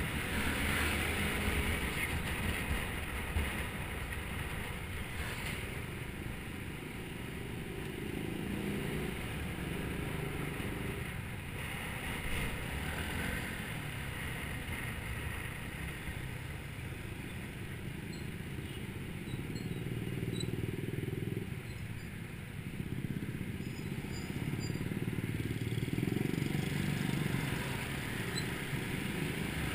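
Motor scooter running at road speed in traffic, heard from the scooter itself: a steady engine and road rumble with wind noise, swelling and easing as it speeds up and slows.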